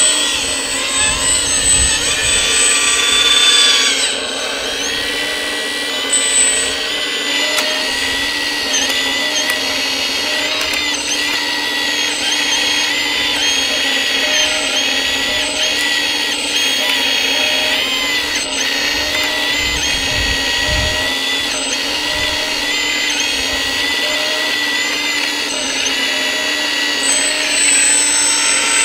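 Electric hydraulic pump of a Kabolite 336 RC excavator whining steadily as the arm and bucket dig. Its pitch dips briefly now and then as the load comes on.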